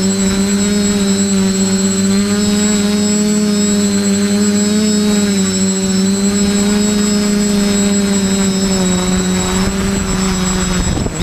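A loud engine runs at a steady pitch, with a steady high whine above its drone. Right at the end its pitch begins to fall as it starts to wind down.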